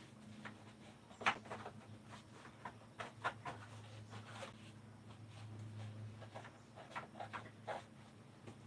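Paintbrush strokes and dabs working paint into a crack in a camper wall: a scattering of short, soft scrapes over a steady low hum.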